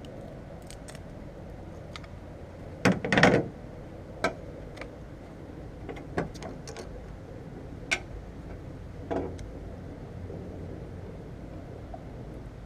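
Handling noises of small hard objects: a quick cluster of clicks and knocks about three seconds in, the loudest, then single knocks every second or two, over a steady low background hum.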